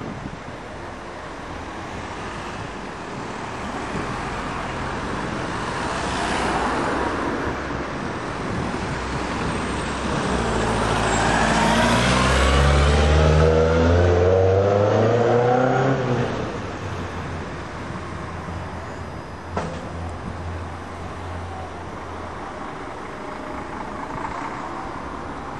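A large vehicle's engine passing close by: it builds to its loudest around the middle and drops in pitch as it goes past, over steady background traffic noise. A single sharp click comes shortly after.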